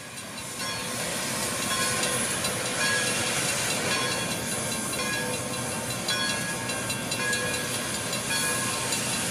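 Steam hissing from the open cylinder cocks of Pere Marquette 1225, a 2-8-4 Berkshire steam locomotive, with short ringing tones coming and going over it. The sound swells up over the first two seconds.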